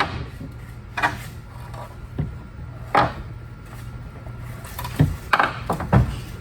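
Knocks, clunks and rubbing as sweeper frame and parts are handled during a tear-down: a clunk about a second in, another near three seconds, and a quick run of knocks near the end.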